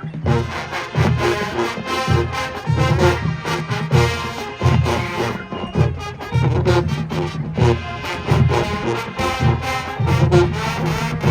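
Marching band playing: brass instruments over a drumline, with strong low hits on a steady beat.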